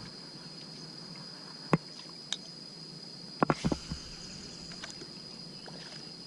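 Insects chirring with a steady high-pitched drone, broken by a few sharp knocks: one about two seconds in and a quick cluster of three or four about halfway through.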